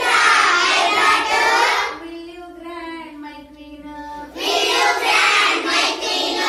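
A group of young children singing a rhyme together in chorus, loud as the whole group joins in for about two seconds at the start and again near the end, with a quieter stretch between.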